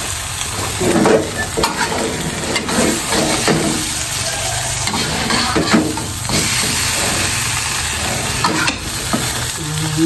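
Food frying and sizzling in a steel wok on a gas stove, with a metal spatula scraping and knocking against the pan as it is stirred and tossed.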